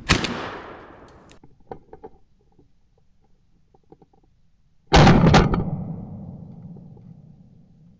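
Two shotgun blasts. The first comes right at the start and the louder second about five seconds in, and each dies away in a long echo.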